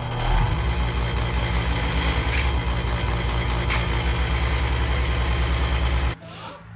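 A motor running steadily for about six seconds, then cutting off suddenly near the end.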